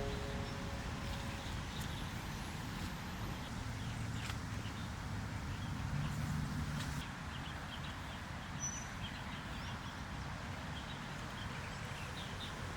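Outdoor ambience: a steady low rumble, like wind on the microphone, with faint scattered bird chirps.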